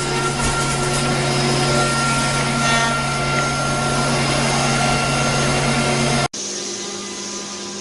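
Steady drone of running CNC router machinery, with a low hum and a high whine. About six seconds in the sound cuts off abruptly to a quieter, lower machine noise.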